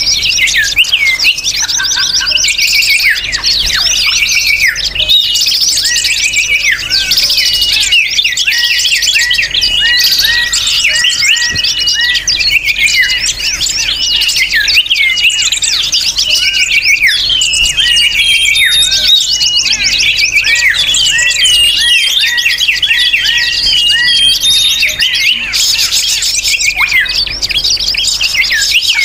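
Dense, noisy chorus of many small birds chirping and twittering fast and overlapping without a break: a bird-lure recording played to draw wild birds in.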